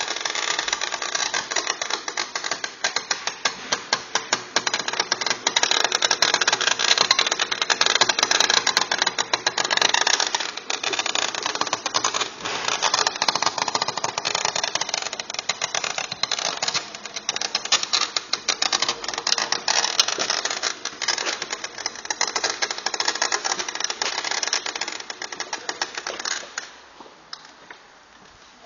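Yamaha Aerox scooter making a rapid, dense clicking and rattling, the unexplained strange noise its owner is asking about; it dies down near the end.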